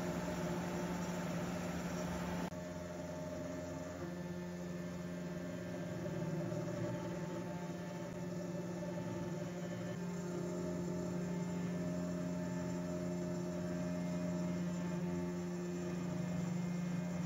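Genmitsu Cubiko mini CNC's 75 W spindle running a 1/8" single-flute carbide end mill through 5 mm aluminum in light 0.5 mm passes at 100 mm/min: a steady hum with a strong low tone and several fainter tones above it. About two and a half seconds in the hiss drops slightly, while the hum carries on.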